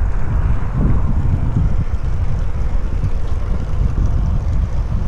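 Wind buffeting the microphone of a camera on a moving bicycle, with tyres rolling on tarmac: a loud, irregular low rumble.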